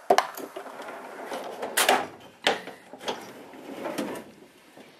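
Steel drawers of a Mastercraft Maxim tool chest sliding on their runners, with tools rattling inside and several sharp metal clacks.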